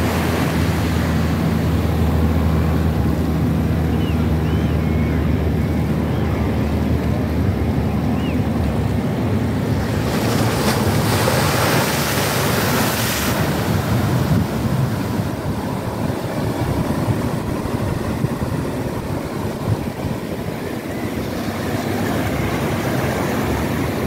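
Sea surf washing around the concrete pilings of a pier, with a wave breaking and splashing against the pilings from about ten to thirteen seconds in, over wind on the microphone.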